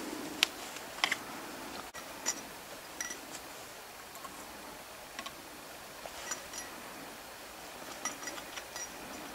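Sharp metallic clicks and taps from an old Lefaucheux double-barrel 16-gauge shotgun being handled with its action broken open, cartridges worked at the breech. The clicks come irregularly, the loudest about half a second and a second in, with a cluster near the end.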